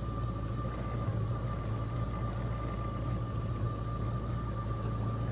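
Jet ski engine running steadily at low speed, a constant low hum with a thin, steady high tone above it.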